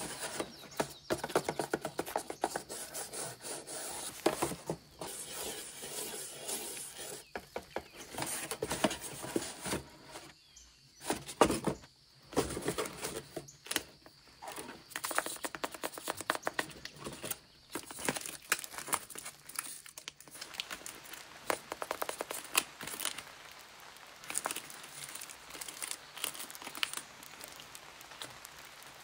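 Close-up crinkling and rustling of paper and tape-covered paper crafts being handled, with many quick crackles and taps as a paper box is opened and a tape-wrapped paper headphone model is lifted out and turned over in the hands.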